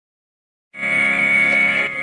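Dead silence, then about two-thirds of a second in an emergency alert alarm tone played through a vocoder starts abruptly: a loud, steady synthesized tone with one strong high pitch over many lower ones.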